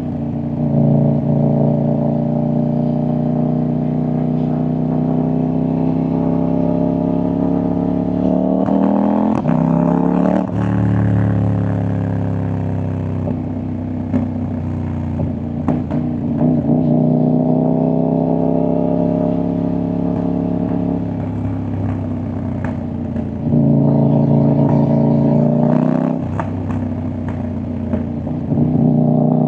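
CFMoto 800NK parallel-twin motorcycle engine and exhaust under way, the revs climbing and then dropping several times as the rider shifts and rolls on and off the throttle. There are a few short pops and crackles from the exhaust when the throttle closes.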